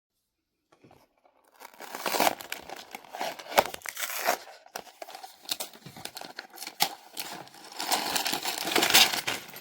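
Packaging of a LEGO set being torn open and crinkled, a busy crackling with scattered sharp clicks. It starts about a second and a half in and cuts off abruptly at the end.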